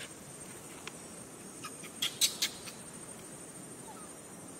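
A quick cluster of five or six sharp clicks about two seconds in, over a steady outdoor background with a thin, high, steady whine.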